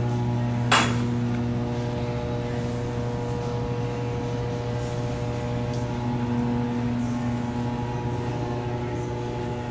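Steady drone of the S.S. Badger's engine-room machinery, a constant low hum with several steady tones over it. A single sharp knock stands out about a second in.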